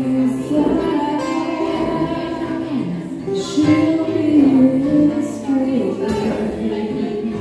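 A woman singing a melody, accompanied by two acoustic guitars.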